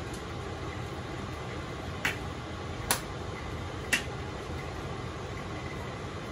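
Three short, sharp clicks about a second apart as a pepper grinder jar is worked over a bowl, over a steady low hum.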